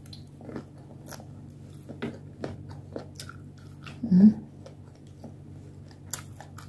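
Close-miked mouth chewing of shrimp sushi: soft, wet clicks and smacks of lips and tongue, with a short hummed "mm" about four seconds in.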